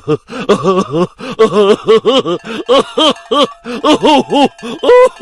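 A person's voice making a quick run of short wordless sounds, each one swooping up and down in pitch, several a second.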